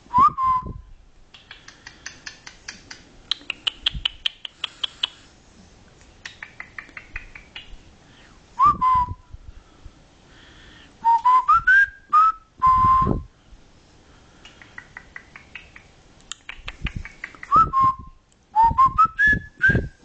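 Cockatiel whistling: a short rising whistled phrase repeated several times, one longer phrase climbing in steps, with soft raspy, clicking chatter between the whistles.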